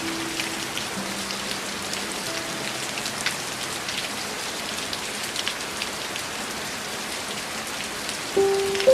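Steady rain with separate drops ticking through it, under soft, slow background music of held notes. Louder music notes come in near the end and fade away.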